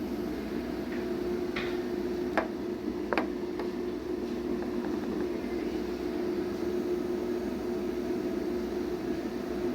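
Steady background hum, with three or four light clicks in the first few seconds as a hand tool turns a threaded oil galley plug into a Pontiac V8 engine block.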